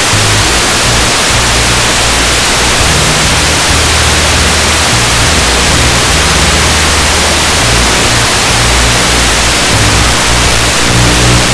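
Loud, steady hiss of static over background music, whose bass notes change every second or so.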